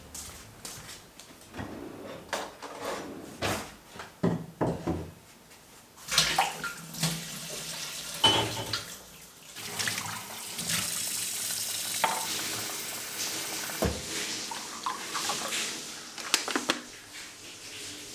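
Dishes and utensils clattering, then a kitchen tap running into a sink for several seconds, with a few more knocks and clinks after the water stops.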